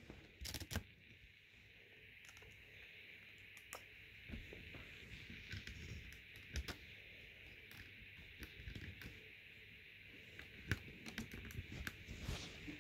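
Faint handling noise: scattered light clicks and short rustles over a steady hiss, a little louder about half a second in and again near the end.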